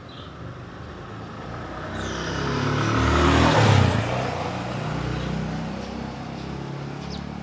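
A motor vehicle passing by. Its engine and tyre noise grow louder, peak about three and a half seconds in, drop in pitch as it goes past, then fade.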